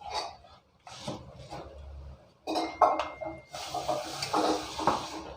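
Kitchen pots and metal utensils clinking and knocking as they are handled, with a steady hiss starting about three and a half seconds in.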